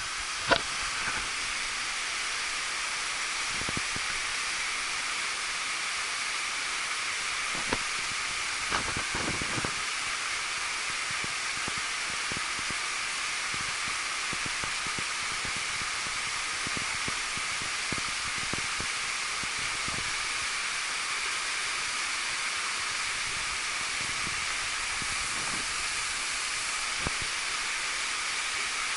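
Waterfall cascading down a narrow rock gorge, heard close up as a steady hiss of falling water. A few faint knocks come in about 4 and 8 to 9 seconds in.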